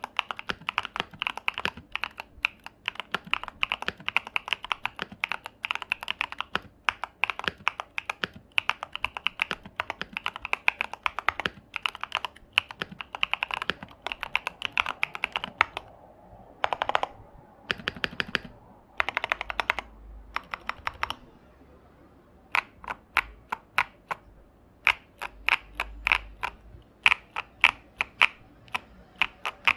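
Typing on a Tofu 65% mechanical keyboard fitted with tall SA-profile plastic keycaps: fast, continuous key clacking for the first half, then after a short lull the keys are struck singly, in spaced-out presses.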